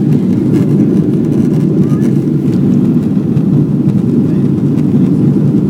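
Boeing 777-300ER's GE90 engines and airflow heard inside the passenger cabin as a loud, steady low rumble during the climb just after takeoff.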